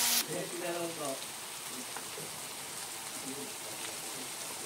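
Ground meat, hotdog slices and vegetables sizzling in oil in a wok, a loud hiss that drops suddenly about a quarter second in to a softer, steady sizzle.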